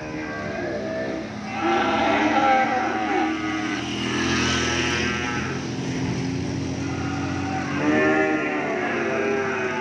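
Cattle in a livestock truck bawling: one long moo beginning about a second and a half in, and a shorter one near the end, over a vehicle engine running steadily.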